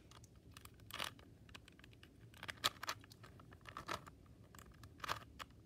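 A Rubik's Cube being turned by hand: its plastic layers click and clack in a few short bursts of quick turns with pauses between them.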